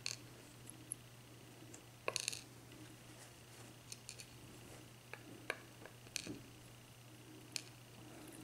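Faint, scattered clicks and taps of a disassembled padlock's small metal parts being handled, with a short cluster of clicks about two seconds in.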